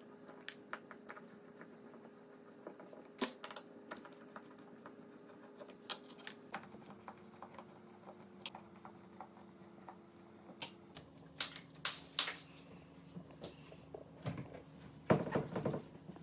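Irregular clicks, ticks and taps of a hand screwdriver with a star bit working door hinge screws loose, with small metal clinks, over a faint steady hum. A louder cluster of knocks comes near the end.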